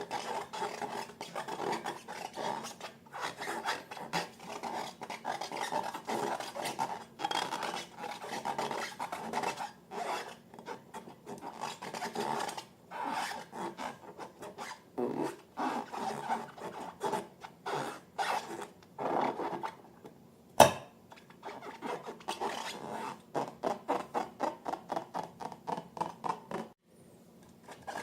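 Rubber balloons being rubbed and handled, a long run of short scratchy rubbing strokes at several a second. A single sharp snap stands out about two-thirds of the way through.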